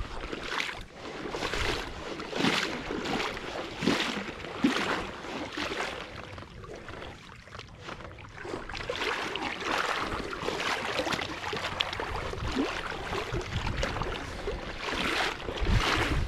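Footsteps on wet sand at the water's edge, about one step a second.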